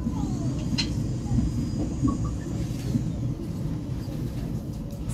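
Steady low rumble inside a passenger train coach as it rolls slowly through a station, with a few faint clicks.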